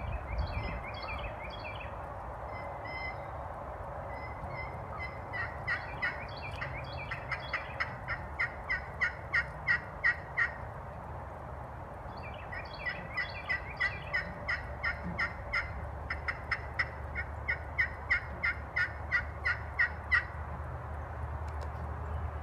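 Blackstone glass-over-walnut turkey pot call worked with a two-piece diamond wood striker, playing two long runs of turkey yelps. Each run speeds up and grows louder, with a pause of about two seconds between them.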